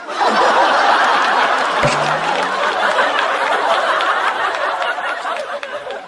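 Studio audience laughing and applauding in response to a punchline, starting at once at full strength and easing off slightly toward the end.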